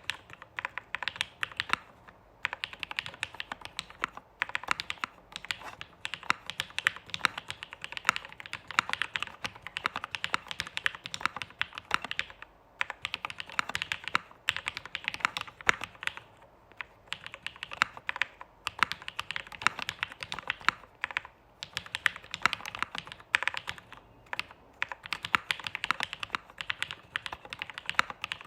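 Typing on an Ai03 Polaris custom mechanical keyboard with lubed Durock POM switches, a half aluminium plate, a flex-cut PCB and ABS keycaps. Quick runs of keystroke clacks with brief pauses every few seconds, a sound the owner calls creamy, clacky and deep.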